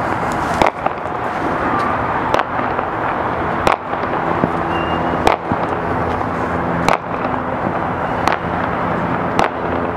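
Distant fireworks bangs, about seven sharp reports spaced roughly a second and a half apart, over a steady wash of background noise.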